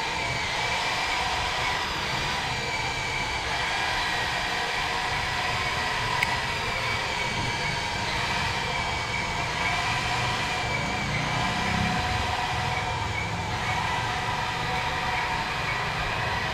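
Small electric track motors of an RC excavator whining steadily as it tows a line of plastic toy trucks, their hard plastic wheels rumbling on concrete.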